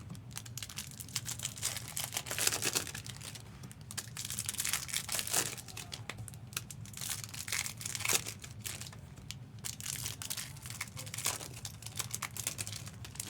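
Trading-card pack wrappers crinkling and tearing in irregular bursts as packs are opened and handled.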